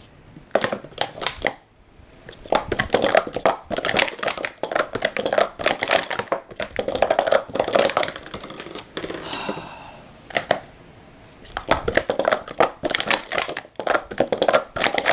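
Speed Stacks Pro Series plastic stacking cups clattering in rapid clicks and clacks as they are upstacked and downstacked at speed on a stacking mat. The clatter comes in two bursts with a pause of about two seconds between them. The cups are new, and to the stacker they sound bad on the downstack.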